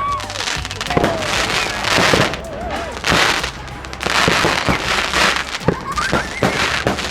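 Fireworks going off: a dense run of crackles and pops over a rushing hiss that swells and fades several times.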